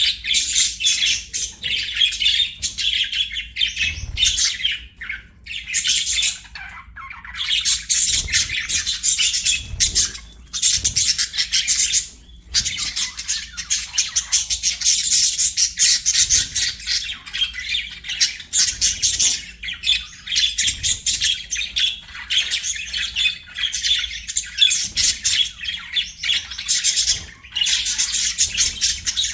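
Budgies chirping rapidly in a dense, near-continuous stream of high chirps, broken by a few short pauses.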